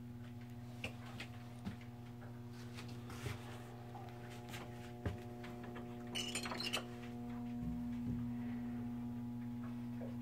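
Steady electrical hum of running shipboard machinery, with scattered light clicks and knocks and a short rustling clatter about six seconds in. The hum gets a little louder near the end.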